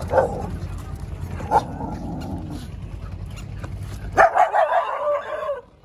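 Street dogs barking at a passer-by waving a stick: a few sharp separate barks, then about four seconds in a quick run of yapping barks. The barking is agitated alarm barking, set off by the stick and the man's silhouette.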